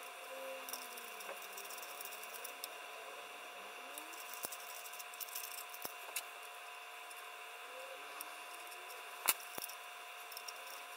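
Scattered light clicks and faint rattling of small parts being handled on a 3D-printed microscope focus stage (plastic plate, gear, pulley and metal nuts and bolts), with one sharper click near the end. Under them runs a steady faint hum with a few high steady tones.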